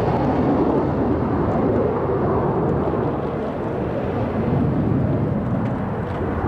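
Jet noise from KAI T-50B Golden Eagle aircraft, each powered by a single General Electric F404 turbofan, flying an aerobatic display: a continuous loud rumble that swells and eases slightly.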